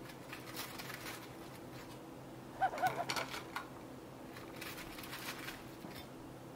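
Quiet room tone with a few faint soft taps as fried potato fries are laid on a ceramic plate, and a brief faint warbling sound about two and a half seconds in.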